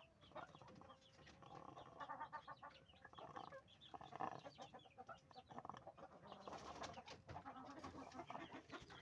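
Faint chicken sounds: soft clucks and many quick, crackly rattles, the snoring breath ('ngorok') of a chicken with a respiratory infection.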